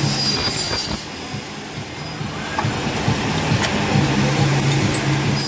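CNC aluminium corner-cleat production machine running through its cycle: a steady motor hum with a high-pitched metallic squeal during the first second and again at the very end, and scattered clicks in between.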